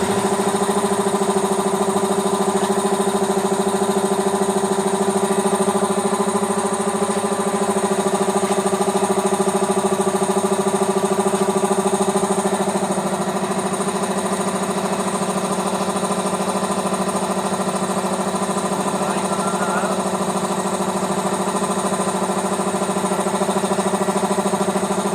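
Air compressor running steadily, a loud even motor-and-pump hum that settles slightly quieter about halfway through.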